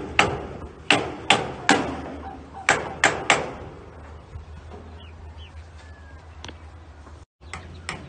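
A series of sharp knocks, like blows on wood or metal: seven strikes in two quick groups, each ringing briefly. Faint short bird chirps follow.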